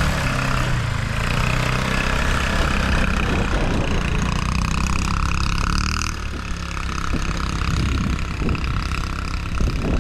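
ATV engine running steadily, with a low engine note.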